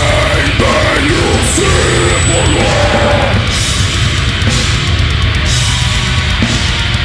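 A heavy metal band playing live, with drum kit and distorted electric guitars, and a shouted vocal line over the first few seconds.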